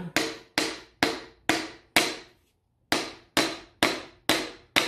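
Hammer knocking on a wooden block set on a piston crown, tapping the piston and connecting rod down the cylinder bore of a 1939 supercharged Graham engine toward the crankshaft. The strikes come about two a second, five, then a pause of about a second, then five more, each a sharp knock with a short ring.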